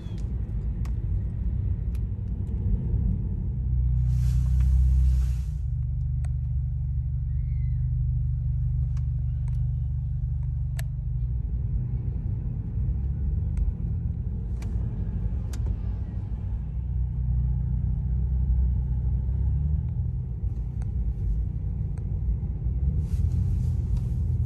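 Car engine and road rumble while driving: a steady low drone, with two brief hissing rushes, one about four seconds in and one near the end.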